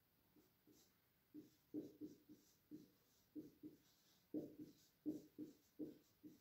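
Marker pen writing on a whiteboard: a faint, uneven run of short strokes, sparse at first and coming thicker and louder from about a second and a half in.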